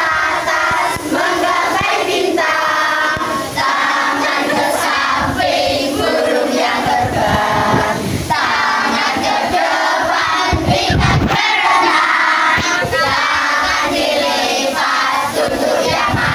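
A large group of young children singing together, an action song with hand movements, their voices continuous and loud.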